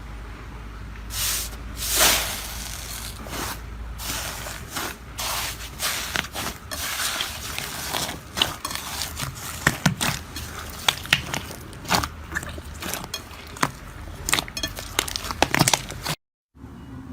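Slime being squeezed and worked by hand: wet squishing with many sharp crackling pops and clicks, which come thicker in the second half. The sound cuts out briefly near the end.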